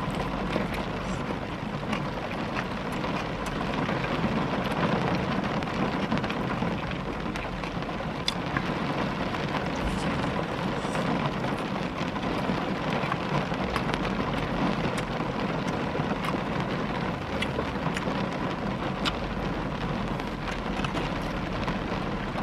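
Rain falling on a car's roof and windows, heard from inside the cabin: a loud, steady hiss dotted with the ticks of single drops.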